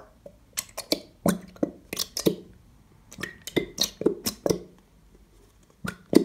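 A plastic bottle of Elmer's clear school glue squeezed upside down over a plastic mixing bowl, giving a run of short, irregular clicks and squelches as the bottle is pressed and the glue spurts out.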